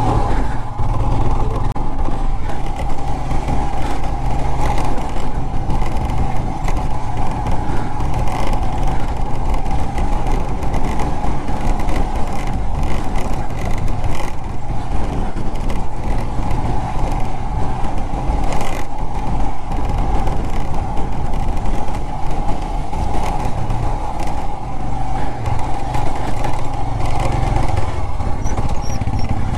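Royal Enfield Himalayan 411 motorcycle riding up a steep, rough, sandy track, its single-cylinder engine running steadily under load with continuous road noise.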